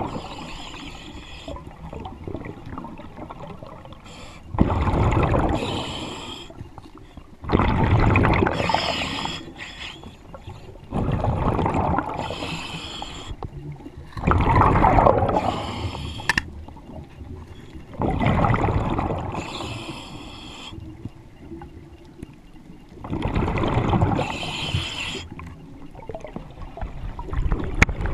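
Diver breathing underwater through a regulator fed by a surface air compressor (hookah rig): a rushing, bubbling breath about every three to four seconds, six times, with quieter stretches between.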